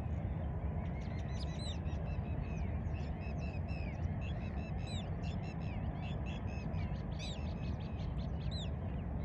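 Several birds calling: many short, high calls, a few each second and overlapping, over a low steady rumble.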